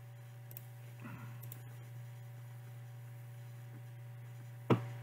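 Faint steady electrical hum with a few light clicks, then one sharp, louder click near the end: computer mouse clicks.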